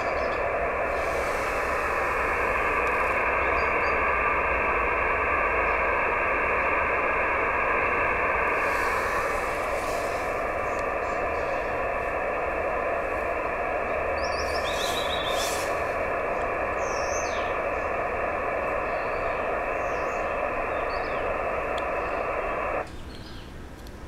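Receiver hiss from an Icom IC-910H in SSB on 432 MHz: steady, band-limited noise with a few faint steady tones in it, the weak JT65 moonbounce signal buried in the noise. About 23 s in it cuts off abruptly as the station switches over to transmit.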